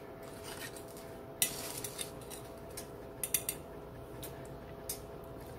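Metal fork clinking against a ceramic plate as it cuts through an omelette. There is a sharp clink about one and a half seconds in, a quick cluster of clinks a little after three seconds, and one more near the end.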